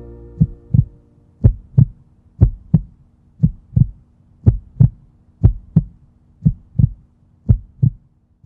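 Heartbeat sound effect: paired lub-dub thumps about once a second, steady, over a faint hum. The last of the music fades out during the first second.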